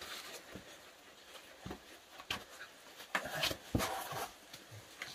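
Scattered scuffs and knocks of boots on sandstone as a man climbs down a rock passage carrying a dog, with faint sounds from the dog around three seconds in.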